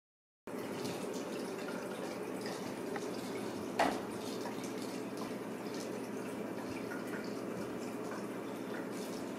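Kittens playing with a clear plastic ball on a hardwood floor: scattered light taps and rolling, with one sharper knock of the ball about four seconds in, over a steady background hiss.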